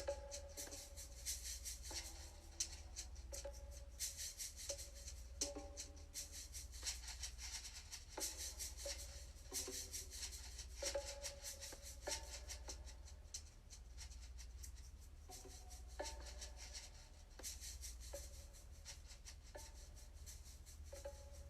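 Faint percussion music: a steady shaker-like rattle with drum-like pitched notes struck every second or two, over a steady low hum.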